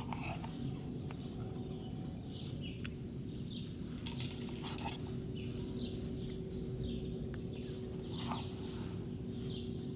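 Birds chirping over and over in short falling chirps, about one every half second to second, over a steady low hum.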